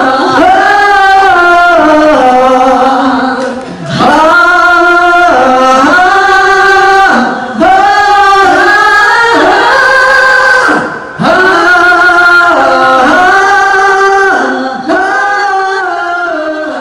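Two male voices singing a Mandarin pop song a cappella in harmony through handheld microphones, in long held phrases with short breaths between them. The last phrase fades near the end.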